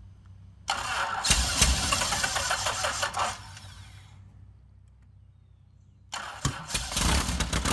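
Van's RV-6A's opposed-cylinder aircraft piston engine on its first start: the starter cranks it with uneven firing for about three seconds, then it winds down and stops. About six seconds in it cranks again, fires and catches, running hard on a throttle opened wider than needed.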